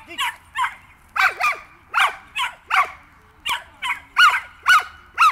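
A dog barking repeatedly, about a dozen sharp barks at roughly two a second.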